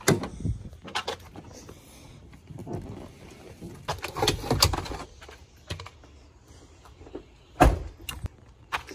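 A pickup truck door unlatches with a click and swings open, then a level knocks and rustles as it is pulled out from behind the seat, and near the end the door slams shut with a loud thud.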